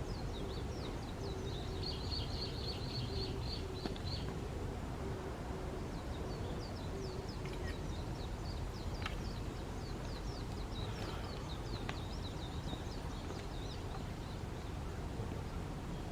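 A small bird singing in fast series of short, high chirps, in two runs with a pause of about two seconds between them, over a steady low rumble.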